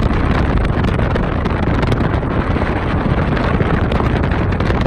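Strong sandstorm wind buffeting the microphone: a loud, steady low rumble with a rustling hiss, no let-up.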